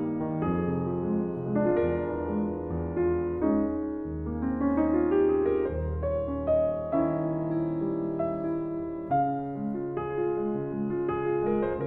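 Solo piano music played on an Ibach grand piano: a slow piece of sustained chords, with a rising run of notes near the middle.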